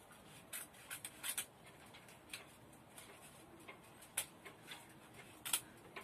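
A bag of flour being worked open by hand: faint, scattered rustles and crinkles with a few short sharp clicks, the sharpest about four and five and a half seconds in.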